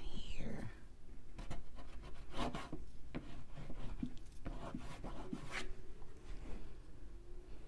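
Mungyo oil pastel scrubbed back and forth on heavy paper in short, irregular scratchy strokes.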